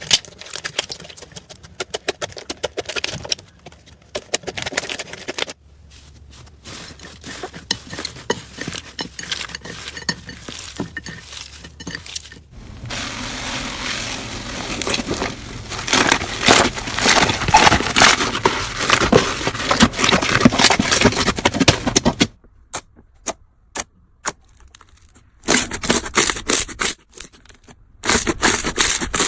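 Slime being squeezed, stretched and poked by hand, giving crackling, clicking and crunching sounds, in several short clips that change abruptly. The densest, loudest crackling runs through the middle.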